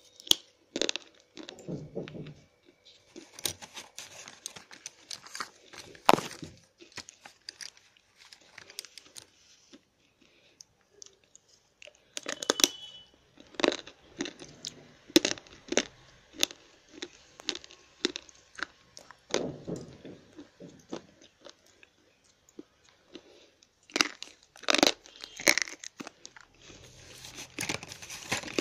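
Slate pencils being bitten and chewed: irregular sharp crunches that come in clusters, with pauses of a second or two between them.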